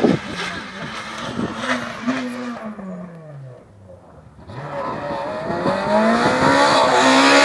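Rally car engine at high revs pulling away, with a sharp crack right at the start, its pitch falling as it fades. After a short lull, another rally car approaches, its engine rising in pitch and getting steadily louder.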